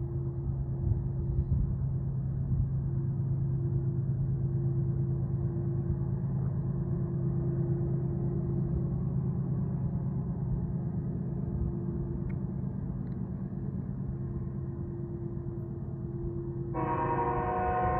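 Lead GE ES44ACH diesel locomotives working hard as they haul a loaded coal train up a steep grade, a steady low drone with a hum. Near the end the locomotive's air horn starts sounding, a loud chord of several notes.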